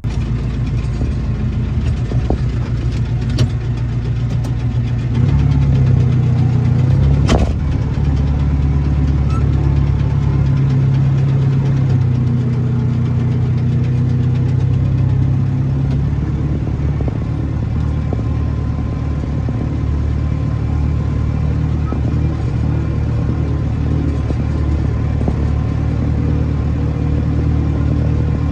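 Tractor engine running steadily, its note going up a little about five seconds in and settling back around sixteen seconds. There is a sharp knock about seven seconds in.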